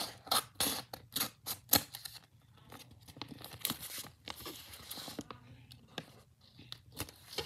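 Scissors snipping through paper in a rapid run of cuts, then softer paper rustling from about three seconds in.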